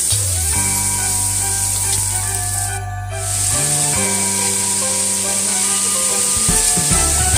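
Food sizzling as it fries in oil, with background music playing over it. Both break off briefly about three seconds in.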